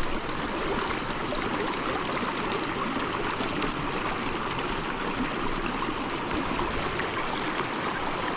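Small mountain creek flowing: a steady rush and trickle of water over stones.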